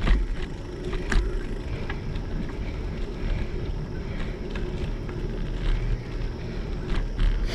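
Riding a bicycle on an asphalt path, heard through a GoPro's microphone: steady wind buffeting and tyre rumble, with a few sharp clicks and rattles from the bike about a second in and near the end.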